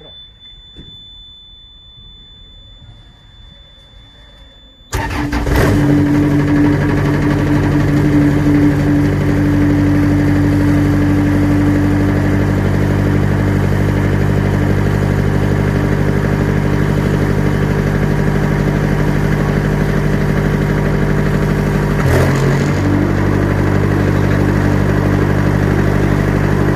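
A faint steady high tone, then about five seconds in a diesel engine starts and runs steadily, loud, with a brief dip in its note around twenty-two seconds in.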